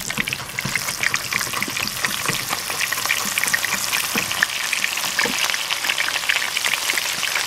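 Pieces of rabbit being laid into hot oil in a wide frying pan, the oil sizzling and crackling with many fine pops. The sizzle grows a little louder about a second in as the meat goes in, then holds steady.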